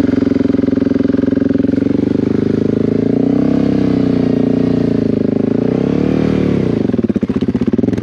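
BMW F650GS motorcycle engine running and being revved as the rider feathers the clutch to creep up a rocky step; the revs rise and fall twice, then drop off near the end.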